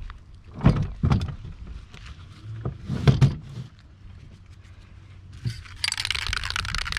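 Heavy thuds of a brick being set down on a sheet-covered table, a few times in the first half. Near the end comes a fast, dense metallic rattle: an aerosol spray-paint can being shaken, its mixing ball rattling inside.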